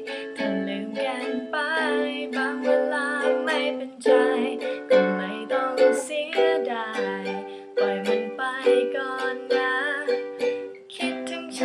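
Ukulele strumming chords in a down-down-up-up-down pattern while a woman sings the melody along with it.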